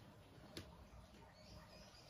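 Near silence: faint room tone with a single soft click about half a second in.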